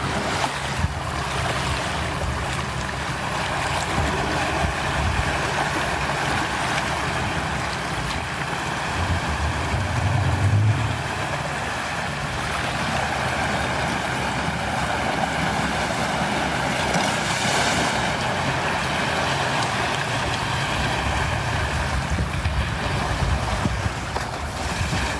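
River in heavy flood rushing steadily, with wind buffeting the microphone in low rumbles.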